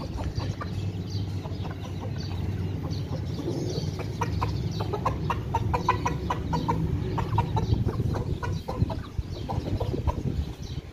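Chickens, a rooster and a hen, clucking in short quick notes, busiest from about four to nine seconds in, over a steady low hum.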